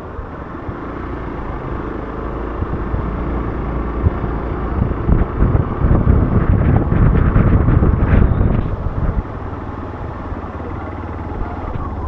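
Hero Xpulse 200's single-cylinder engine running while the motorcycle is ridden, louder through the middle and easing off about nine seconds in.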